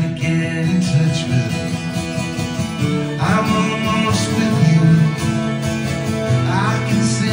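Instrumental passage of a live acoustic performance: a twelve-string acoustic guitar strummed steadily while a violin plays the melody above it, with two sliding notes, about three seconds in and near the end.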